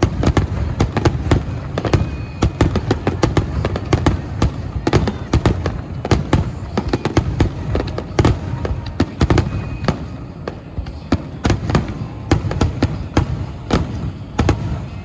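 Aerial fireworks going off in a dense finale barrage: many sharp bangs and cracks, several a second, overlapping over a constant low booming rumble.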